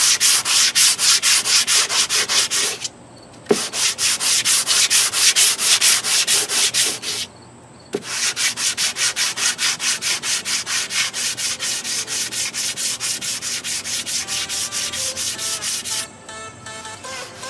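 Sanding block rubbed back and forth over cured clear coat on a car's quarter panel in rapid, even strokes, stopping briefly twice: the clear coat is being block-sanded flat.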